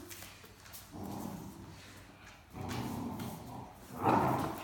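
Great Dane puppy growling and grumbling while tugging at a stuffed toy with an adult Great Dane, in three bouts, the last, about four seconds in, the loudest.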